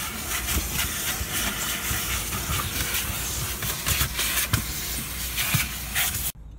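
Car wash vacuum hose running: a steady rushing hiss with a faint hum as the nozzle sucks over the floor mat and seat, with a few knocks as it bumps the interior. It cuts off suddenly near the end.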